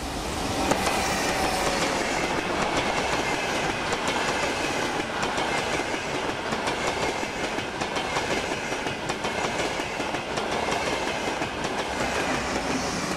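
ETR 500 high-speed electric trainset passing close by: a steady rush of wheels on rail with rapid clicking over the rail joints, and a faint whine falling in pitch over the first few seconds.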